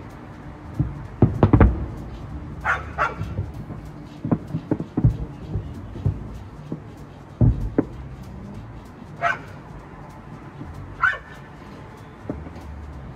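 Fireworks booming in the distance: a quick cluster of bangs about a second and a half in, then scattered single bangs. Three short high-pitched yelps sound between them.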